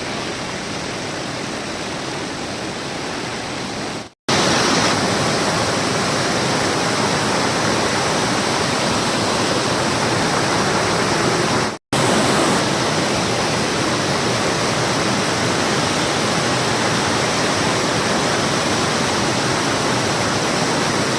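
Waterfall in flood: a steady, dense rush of fast, heavy water. It cuts out for a moment twice, about four seconds in and again near twelve seconds, and is louder after the first break.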